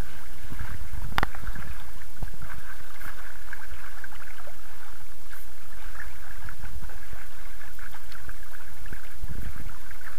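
Water rushing and splashing along the bow of a Bonito Aquarius 22 sailboat under way, with a steady low wind rumble on the microphone. A single sharp knock comes about a second in.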